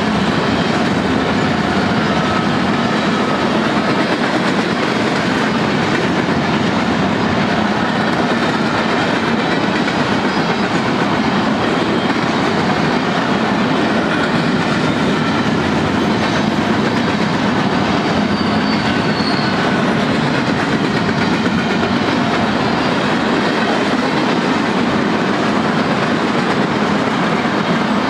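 Freight train of tank cars and covered hoppers rolling past at a steady speed, steel wheels running on the rails in a continuous, even rumble.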